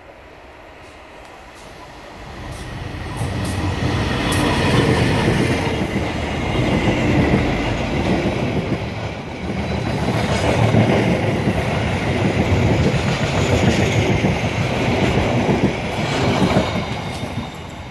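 Local passenger train (KRD) passing close by, its coach wheels clattering over the rail joints. The sound builds over the first few seconds and fades near the end as the train moves away.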